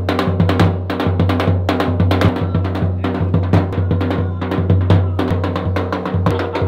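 Drum-led dance music: quick, dense drum beats, several a second, over a steady low drone.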